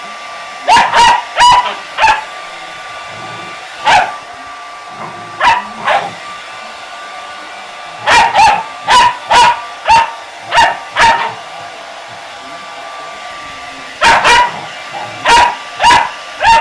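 Golden retriever puppy barking in short, sharp barks, in bursts of two to five, at a hair dryer that runs with a steady hiss and whine. The hair dryer cuts off at the very end.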